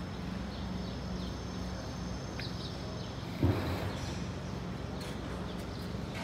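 A steady low hum over background noise, with a single thump about three and a half seconds in.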